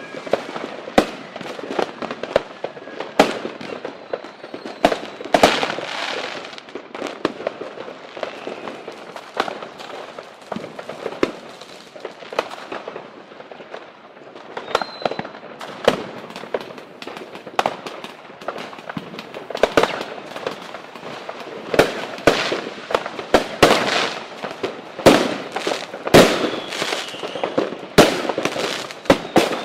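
Fireworks and firecrackers (cohetes) going off: a dense, irregular string of sharp bangs and crackles, busiest in the last third, with a few faint whistles.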